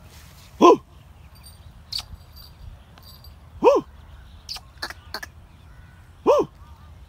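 Three short animal calls about three seconds apart, each rising and then falling in pitch, with a few faint clicks between them.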